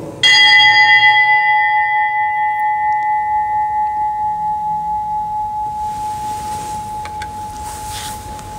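A single altar bell struck once, ringing with one clear note and a long slow fade. It marks the elevation of the consecrated host.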